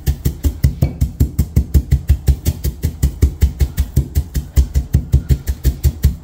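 Stone mortar and pestle pounding coriander seeds, a fast even run of dull knocks, about six a second, crushing the seeds only coarsely.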